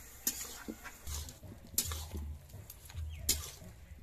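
Metal spatula stirring curry in a steel wok, clinking sharply against the pan a few times, with dull low thuds in between.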